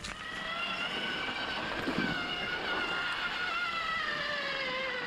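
Electric mountain bike's motor whining under way, its pitch slowly falling for most of the time, then rising again near the end, over the rush of tyres on a dirt trail.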